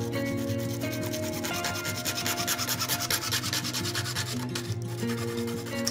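A bare hacksaw blade sawing through a PVC pipe: rapid rasping back-and-forth strokes, strongest in the middle and easing off near the end. Background music plays underneath.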